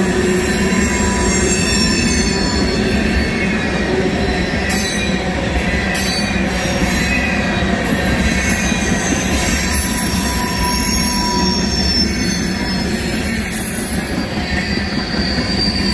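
Empty ethanol train's tank cars rolling past, wheels rumbling steadily on the rails, with high-pitched wheel squeals that come and go.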